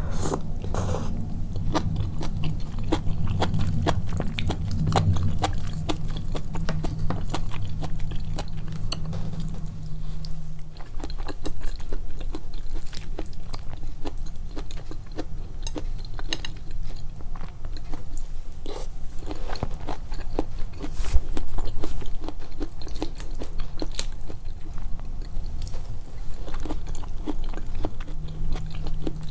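Close-miked eating sounds: a person biting and chewing food, with a dense run of sharp mouth clicks and crunches.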